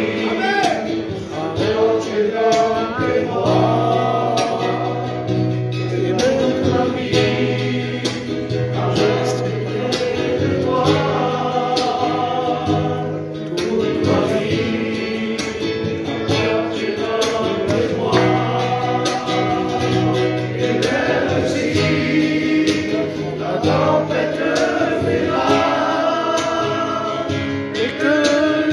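A church congregation singing a hymn together, men's voices leading through the microphone, over an instrumental accompaniment with long held bass notes that change every couple of seconds.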